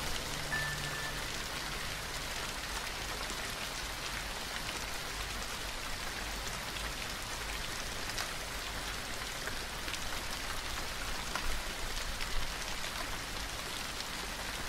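Steady rain, an even hiss of falling drops with scattered sharper drop ticks. The last low note of the music dies away in the first second, and a couple of slightly louder spatters come a little past the middle.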